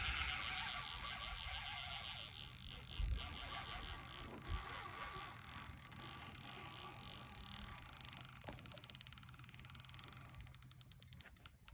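Spinning reel's drag buzzing as a hooked Chinook salmon pulls line off against it. The rapid clicking is loudest at first, fades, and near the end breaks into separate, slower clicks as the run eases.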